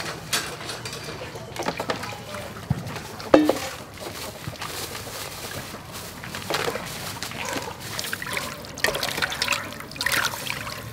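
Raw chicken drumsticks being washed by hand in a metal bowl of water: irregular sloshing and splashing as the pieces are rubbed and turned.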